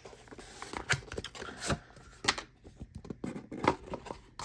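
Irregular clicks, taps and rustling from handling a small boxed metal fidget toy and its packaging.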